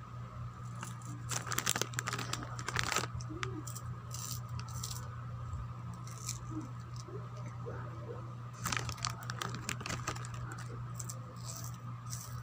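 Plastic snack packet crinkling and rustling as it is handled, in two spells of crackling, one about a second in and another from about eight and a half seconds in. A steady low hum runs underneath.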